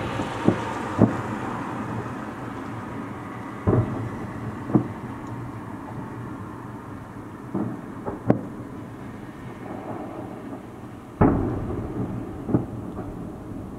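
Aerial firework shells bursting about 7 km away, heard as dull booms with a rumble between them. About nine booms come at irregular intervals, the loudest about 11 seconds in.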